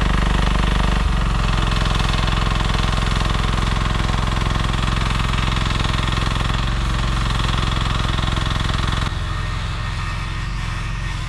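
Engine of a one-ton Chinese mini excavator running steadily with a dense low rumble; its sound shifts slightly about a second in and drops a step in level near the end.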